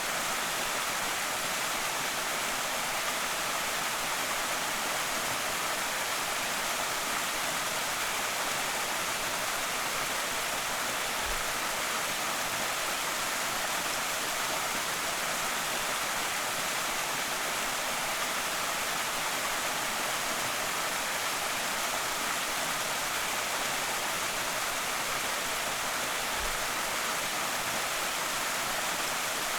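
Small creek waterfall: a steady, even rush of falling water, strongest in its hiss rather than its low end.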